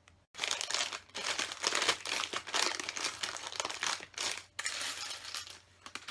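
Plastic LEGO parts bags crinkling in bursts as they are handled and set down, easing off about four and a half seconds in.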